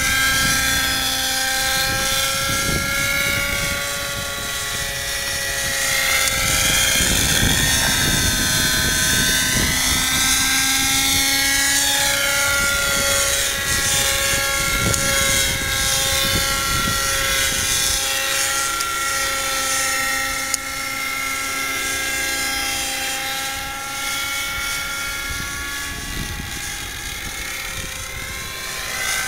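X-Cell 90 radio-controlled model helicopter in flight: its .90-size two-stroke glow engine and rotors make a steady high whine. The pitch wavers and sweeps up and down a few times as the helicopter manoeuvres.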